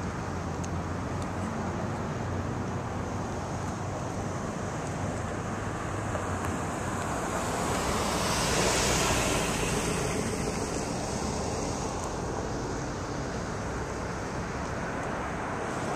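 Steady street traffic noise with a low hum, and a car passing by on the road: it swells to its loudest about halfway through and then fades away.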